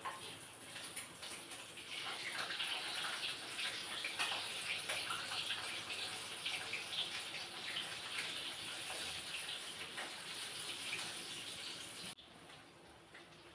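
Water running from a tap and splashing, stopping abruptly near the end.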